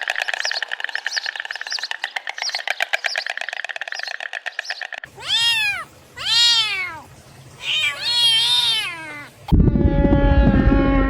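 A buzzing, rapidly pulsing sound for about the first five seconds, then a cat meowing three times, each meow rising and falling in pitch. A louder, deeper sound cuts in near the end.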